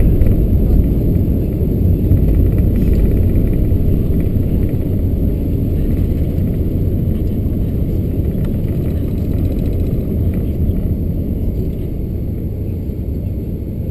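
Cabin noise inside an Airbus A380-861 at takeoff thrust as it lifts off and climbs: a loud, steady, low rumble of its four Engine Alliance GP7200 engines and airflow, easing slightly toward the end.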